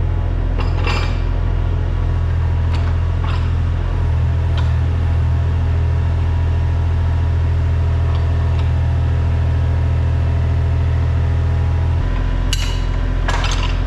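An engine running at a steady low note, with scattered metallic clanks and knocks over it; the engine note changes about twelve seconds in.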